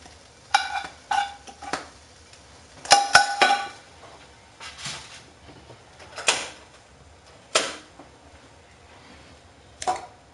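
A metal frying pan and spatula clanking: a series of separate knocks and taps, some with a short metallic ring, with the busiest cluster about three seconds in. It is the pan being scraped out and set back on the stove.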